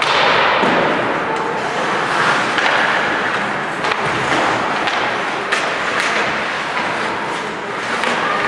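Live ice hockey play in an arena: a steady din of the rink and spectators, broken several times by sharp knocks of sticks, puck and bodies hitting the boards.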